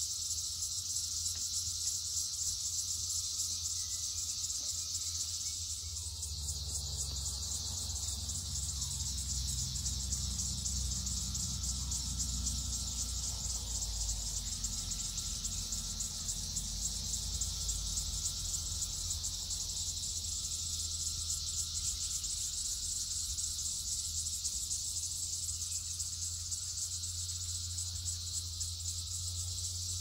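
Chorus of many red-eyed cicadas (Psaltoda moerens) calling together from one tree: a loud, steady high-pitched shrill.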